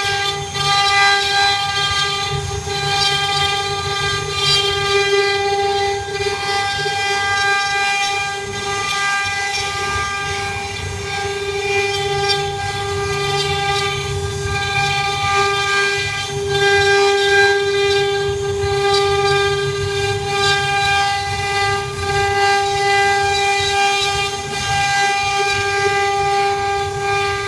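CNC router spindle running with a steady high whine while carving wood, with rough cutting noise underneath.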